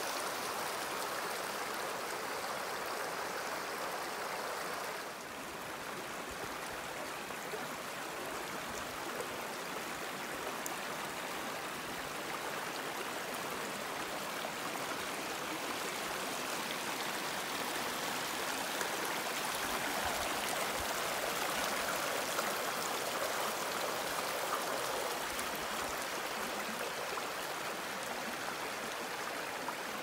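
Shallow mountain stream flowing steadily over a rocky bed. About five seconds in, the water sound drops slightly and changes character.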